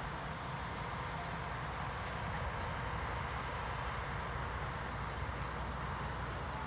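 1920 Baldwin steam locomotive moving slowly with its short train: a steady low rumble and hiss, with no distinct exhaust beats.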